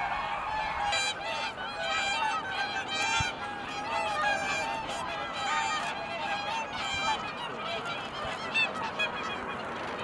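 A large flock of whooper swans calling, many calls overlapping without a break.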